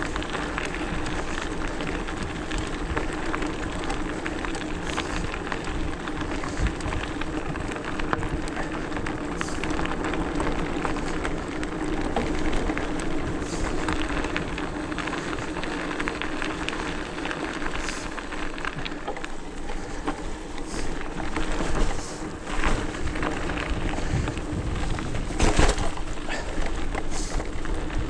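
Hardtail e-mountain bike riding a forest trail: continuous crackling tyre noise over the ground with a steady low hum. Sharp knocks from the bike over bumps come every few seconds, the loudest near the end.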